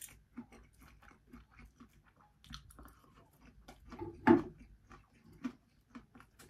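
Close-up chewing of breaded fried chicken: quick, wet mouth clicks and smacks. One louder, brief sound a little past four seconds in.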